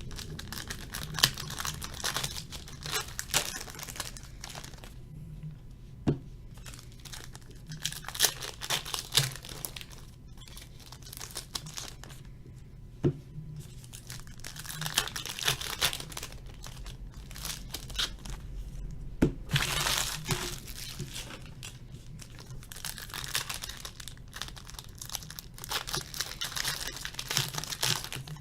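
Trading card pack wrappers being torn open and crinkled, in repeated bursts, with sharp clicks now and then as the cards are handled.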